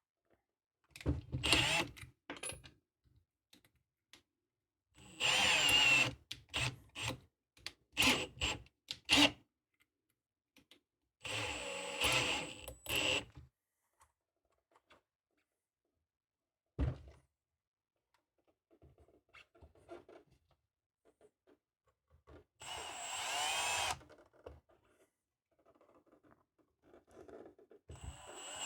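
Cordless drill driving screws in short runs, about five bursts of whirring that speed up and wind down, with quiet gaps and a few clicks between them.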